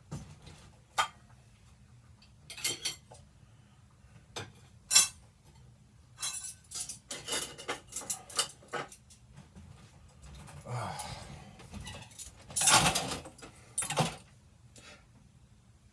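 Metal silverware clinking and clattering as pieces are gathered up and dropped together, in scattered clinks with a busy run of clatter in the middle and the loudest clanks near the end.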